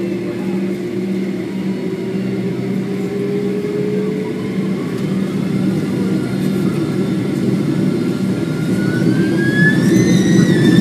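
Boeing 767 jet engines heard from inside the passenger cabin: a steady low drone and roar that grows louder, with a whine rising in pitch over the second half, as the engines spool up.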